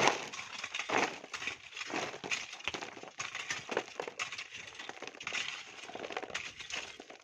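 Hand tools digging and scraping into coarse volcanic sand and gravel, with stones clinking and crunching in an irregular run of strokes, the loudest at the start and about a second in.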